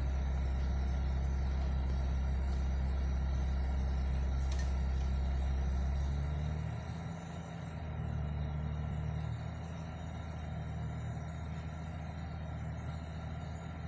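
Audi A6 C4's 2.6-litre ABC V6 petrol engine idling steadily, heard from inside the cabin; about six and a half seconds in the deep low hum eases and the note shifts slightly and wavers a little.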